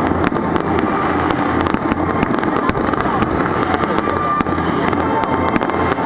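Fireworks going off continuously: a dense crackle of many small sharp pops over a steady low rumble.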